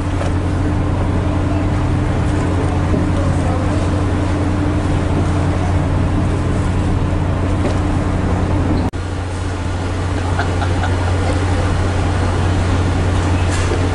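Ferry's diesel engine running with a steady low hum over water and wind noise. The sound drops out sharply for a moment about nine seconds in, then the hum carries on.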